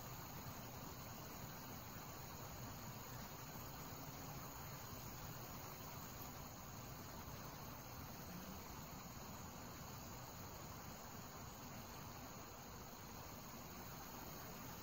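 Faint, steady insect chorus.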